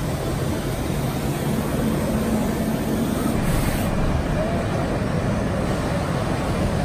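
Steady, even din of a busy machine-tool trade-show hall, with a 5-axis CNC machining centre running behind its closed enclosure.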